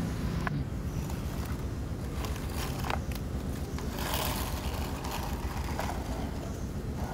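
Plastic toy tractor loader and toy trucks scraping and knocking on wet concrete, with a few sharp clicks and a scrape about four seconds in, over a steady low rumble.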